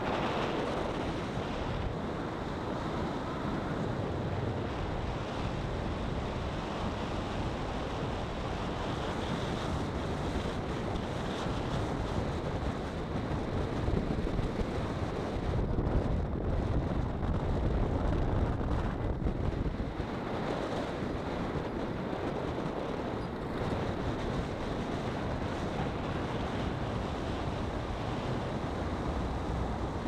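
Wind buffeting the microphone of a camera mounted outside a moving car, over the rumble of tyres on rough, cracked asphalt. It swells louder for several seconds midway.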